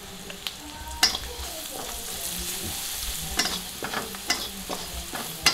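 Chillies, shallots and garlic sizzling in oil in a wok while a metal ladle stirs and scrapes them, the first stage of a chilli coconut-milk curry. About five sharp metal clinks of the ladle on the wok, the loudest about a second in and at the end.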